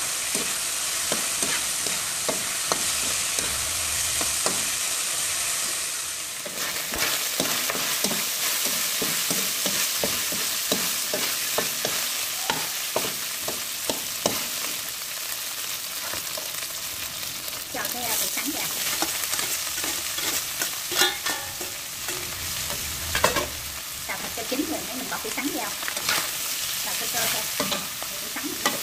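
Shredded jicama and carrot stir-frying in hot oil in a pan, sizzling steadily while a spatula scrapes and knocks against the pan, with a few louder knocks past the middle.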